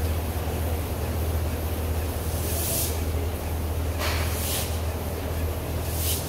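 Steady low machine hum, with three short bursts of hissing spray or air.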